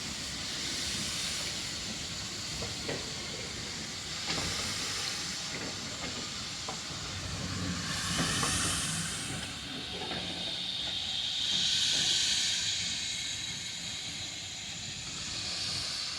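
Steam hissing from the GWR Grange class 4-6-0 steam locomotive Betton Grange as it departs. The hiss is continuous and swells louder about eight seconds in and again around twelve seconds, with a few light clicks.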